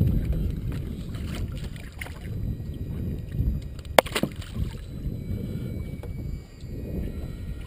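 Wind buffeting the microphone and water noise around a small fishing boat, a low fluctuating rumble. A sharp double click sounds about four seconds in.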